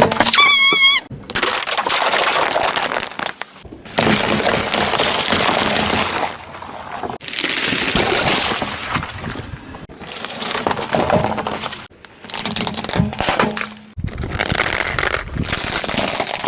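Objects cracking and crunching as they are crushed under a car's tyres, in a run of short clips that each cut off abruptly. A brief high, wavering squeal sounds about half a second in.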